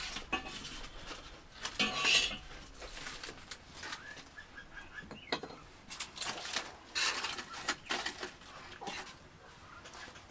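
Metal spatula scraping and clinking against a frying pan in short, irregular bursts, with a few faint bird chirps around the middle.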